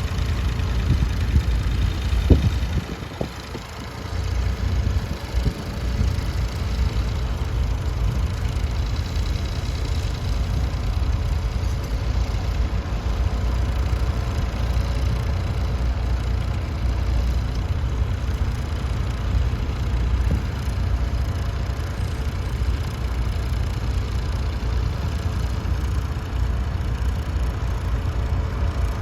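Massey Ferguson 148 tractor's three-cylinder Perkins diesel engine running steadily while ploughing, with a brief drop in level about three seconds in.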